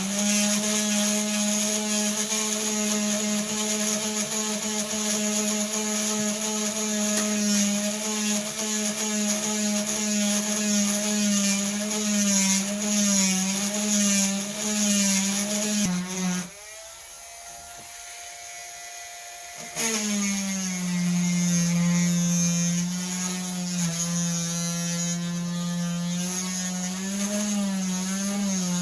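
Dremel rotary tool with a diamond bit drilling dry into a stone, its motor whining steadily, the pitch wavering as the bit is pressed in and eased off. About two-thirds of the way through it drops much quieter for about three seconds, then comes back at full level.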